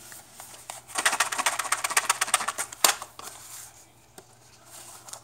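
Cardboard boxes of cartridges being handled, with a rapid run of light clicks for about two seconds, ending in one sharper click.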